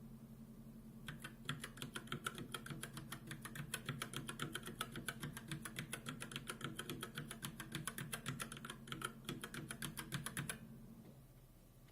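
Mechanical keyboard being typed on: a fast, steady run of keystrokes, several a second, starting about a second in and stopping shortly before the end, over a faint steady hum.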